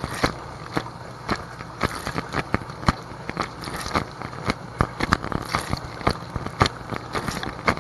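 Inside a running Whirlpool WDT910SSYM0 dishwasher: water jets splash and patter irregularly against the plastic bag around the camera, with many sharp ticks and a steady low hum underneath.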